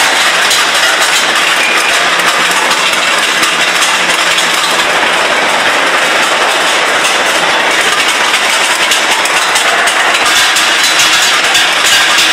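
Steady, loud factory machinery noise with a dense clatter running through it, unchanging across the whole stretch, in a steel-ball production line.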